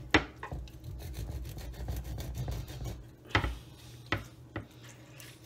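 Kitchen knife sawing back and forth through a pomfret's head on a wooden cutting board, a rough scraping with a sharp knock of the blade against the board near the start and another about three seconds in, then a couple of lighter clicks.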